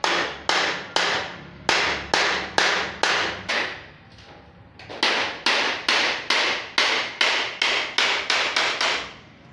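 Small hand hammer striking a flat galvanized steel sheet lying on a concrete floor, sharp ringing blows about three a second. There is a pause of about a second near the middle, then the blows come a little faster.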